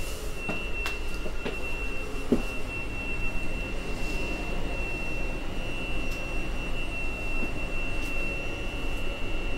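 Inside a passenger railway carriage: a steady high-pitched tone held over a low rumble, with a few light knocks in the first couple of seconds.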